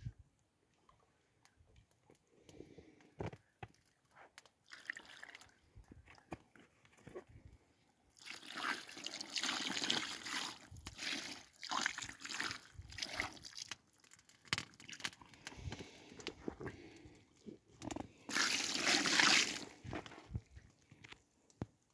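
Water poured over a common carp lying on a wet unhooking mat, splashing and pattering onto the fish and mat. A few faint taps come first, then a long pour starts about eight seconds in, and a shorter, louder pour follows near the end.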